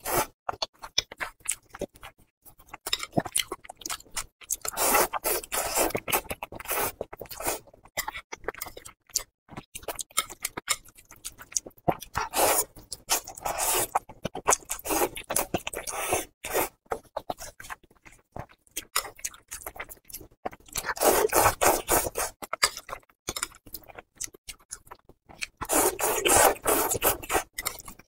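Close-miked slurping of spicy instant noodles: four long sucking slurps of a few seconds each, with wet chewing and lip-smacking clicks in between.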